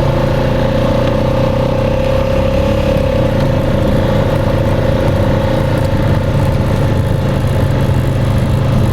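A vehicle's engine running steadily while driving, a low hum with a steady whine above it.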